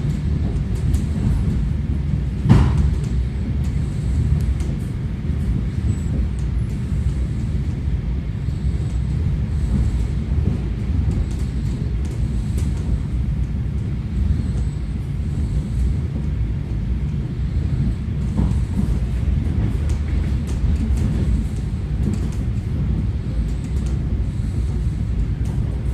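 Russian suburban electric train (elektrichka) running, heard from inside the carriage: a steady low rumble of wheels on rail, with a single knock about two and a half seconds in.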